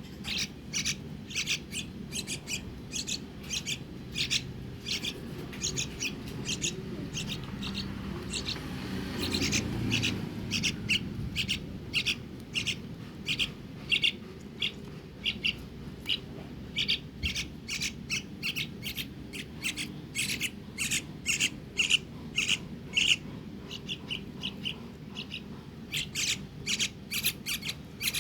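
Young birds chirping: short, high chirps repeated quickly, several a second, without a break.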